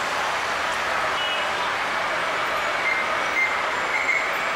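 Airbus A330 airliner's jet engines running as it moves along the runway, heard from a distance as a steady rushing hiss. A faint high whine comes in about halfway through.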